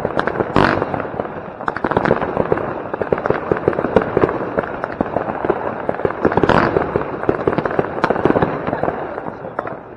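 Consumer firework batteries, Röder Kometenschauer Gold-Glitter comets and a Nico Kairo cake, firing: a dense, continuous crackle of pops, with louder bangs about half a second in and again about six and a half seconds in.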